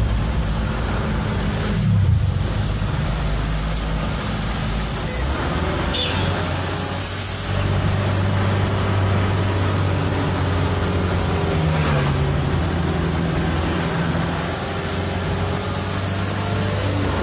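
Truck engine running under way, its note shifting in pitch a few times as the speed changes. A high whistle rises and falls twice, with a few short hisses in between.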